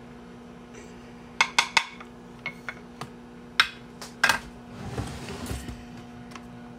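Sharp clinks and clacks of kitchen dishes and utensils being handled on a counter, about eight in a few seconds, followed by a soft rustle of movement.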